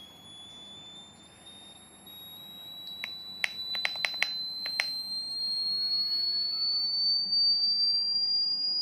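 Passive buzzer sounding a continuous high tone that climbs slowly in pitch as a pushbutton raises its frequency, nearing its top pitch at the end. Several sharp clicks about three to five seconds in.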